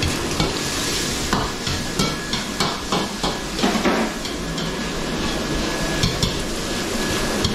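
Metal ladle knocking and scraping in a wok as food is stir-fried over a steady sizzling hiss. The sizzle is strongest for the first second or so. A quick run of sharp knocks, about three a second, follows and lasts a few seconds, and a few scattered knocks come later.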